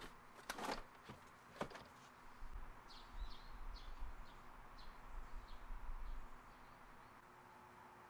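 Two short rustling knocks as camping gear is pushed onto the shelves of a storage shed, then small birds chirping a dozen or so times, fainter, with a low rumble under them that dies away near the end.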